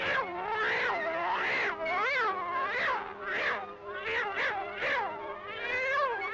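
Cartoon cat yowling, a run of about ten meows in quick succession, each rising and then falling in pitch.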